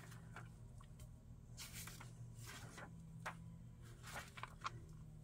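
Soft rustling and swishing of paper pages as an old stapled paperback cookbook is leafed through, several faint swishes in a row over a low steady hum.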